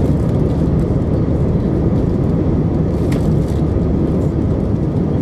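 Steady, even roar of airliner cabin noise inside an Airbus A319 in flight: engine and airflow noise heard from a window seat, strongest in the low range.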